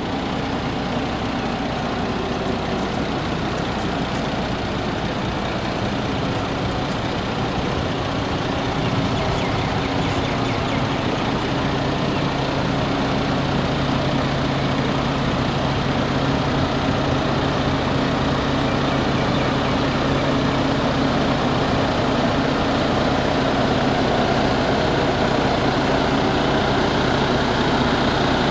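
MAN TGS 32.400 concrete mixer truck's six-cylinder diesel engine running at idle. About ten seconds in, a steady hum joins it and the sound grows a little louder.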